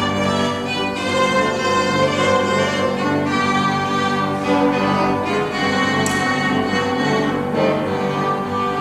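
Piano trio of violin, cello and piano playing a classical piece, the bowed strings holding sustained melodic lines over the piano.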